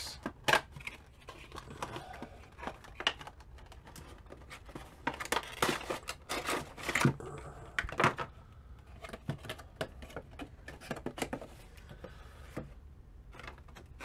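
A Funko Pop cardboard window box being opened and its clear plastic clamshell insert handled and pulled apart: a run of crackles, clicks and scrapes, busiest about five to seven seconds in.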